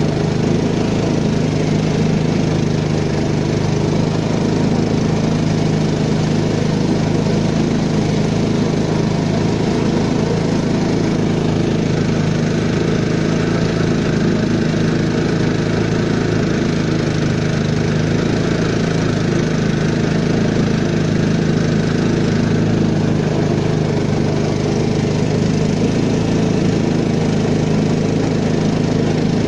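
Peque-peque long-tail boat engine running steadily at an even pitch, heard from on board the moving boat.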